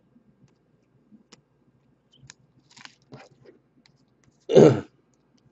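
Faint clicks and rustles of chrome baseball cards being slid off a stack and flipped by hand. A short loud burst about four and a half seconds in.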